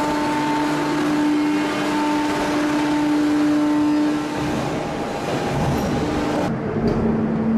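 Heavy forging press and forging manipulator running: a loud, steady machine noise with a constant humming tone, the sound changing abruptly about six and a half seconds in.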